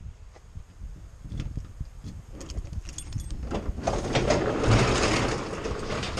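Sectional garage door being pushed up by hand, its rollers rattling and rumbling along the tracks, with scattered clicks, getting louder as the door rises.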